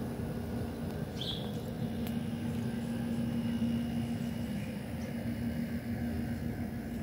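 Pool heater running: a steady low hum. A short high chirp sounds about a second in.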